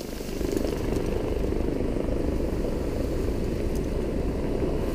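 Helicopter running steadily, a low even rumble.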